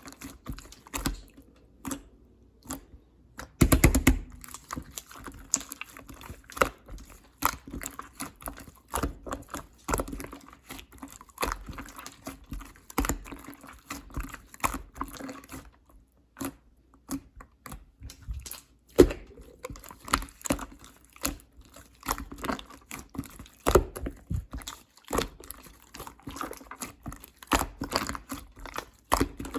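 Clear slime being squished and pressed by hand, making a continual irregular run of small wet clicks and pops.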